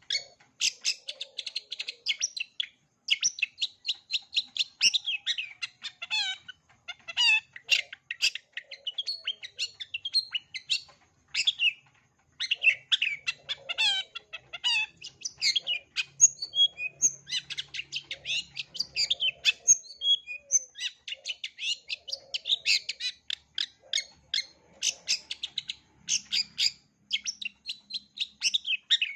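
Long-tailed shrike (cendet) singing a fast, varied run of chirps and mimicked calls, almost without a break.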